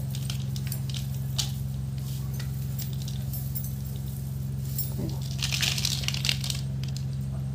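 Sprouted rice (paddy) seeds rustling as handfuls are scooped and let fall back onto the heap, loudest about five and a half seconds in, over a steady low hum.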